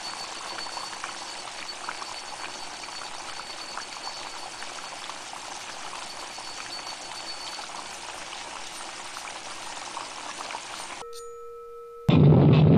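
Steady hiss of falling water, dotted with small crackles and drips. About eleven seconds in it cuts off to a brief steady tone, and near the end loud music starts.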